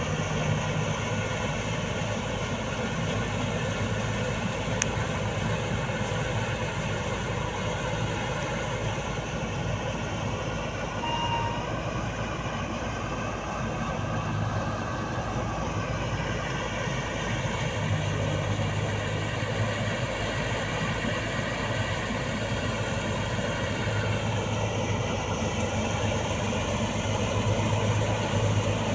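Combine harvester running steadily, its engine and machinery a continuous drone; the engine pitch dips briefly about halfway through and then recovers.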